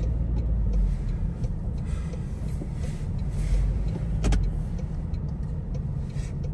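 Car driving, heard from inside the cabin: a steady low road-and-engine rumble, with one sharp click a little past four seconds in.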